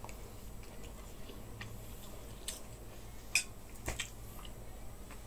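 Quiet eating sounds: a man chewing a spoonful of fried rice, with a few soft, sharp clicks of the spoon and mouth over a low steady room hum.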